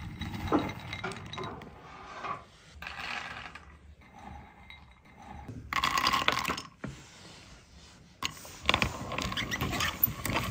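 Kitchen utensils and dishes clinking and scraping, with two longer stretches of rapid scraping near the end.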